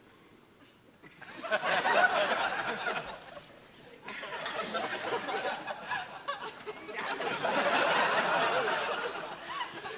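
Audience laughter: about a second of near silence, then laughter swelling, dipping briefly about four seconds in, and building again to a louder peak before fading near the end.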